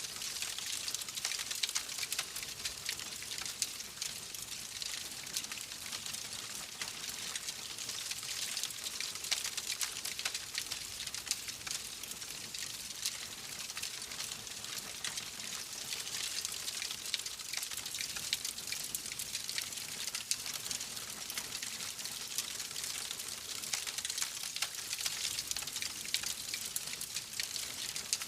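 Wood fire burning in a fireplace: a steady crackle and hiss with many small, rapid pops.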